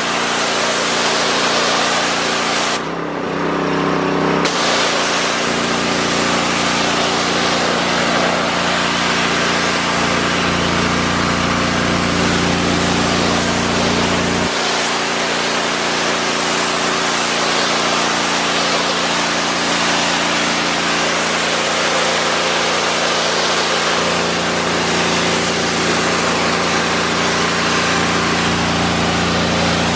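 Westinghouse 3400 PSI gas pressure washer running steadily, its engine note under the hiss of the high-pressure spray hitting concrete. About three seconds in, the spray cuts out for a second and a half while the engine keeps running.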